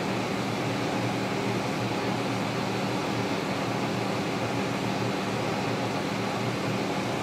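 Lucas 41 horizontal boring mill boring cast steel with a long boring bar: a steady hum with several low steady tones. The bar is on the edge of chatter, the hum the operator says likes to go to singing on a long overhang.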